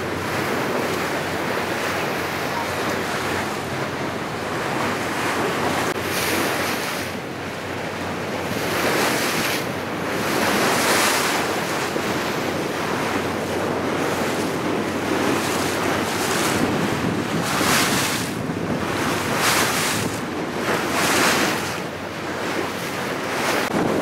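Sea water rushing and splashing past the hull of a moving tour boat, with wind buffeting the microphone in several louder gusts, mostly in the second half, over a low steady hum from the boat.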